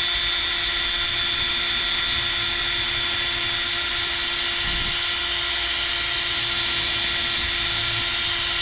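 Power drill with a 4 mm bit running steadily at one speed, a high whine, drilling out a molded fuel-line hole in a small chainsaw.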